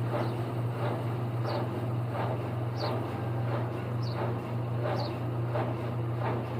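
Consul CHW12BB top-loading washing machine on its spin cycle: a steady motor hum, with a swish recurring about once a second, some swishes topped by a short high squeak.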